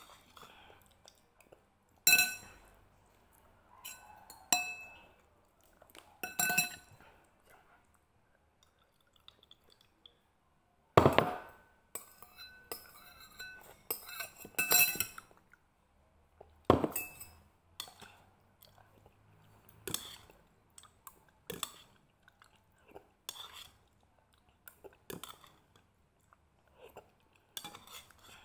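Utensils clinking against a ceramic bowl of noodle soup, several sharp ringing clinks with the loudest about two seconds and eleven seconds in, with chewing and eating noises in between.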